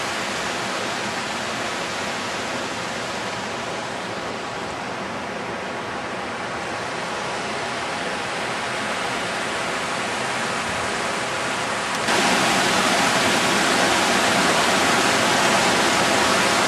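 Steady rushing noise. About twelve seconds in it jumps suddenly louder: a mountain stream running over rocks close by.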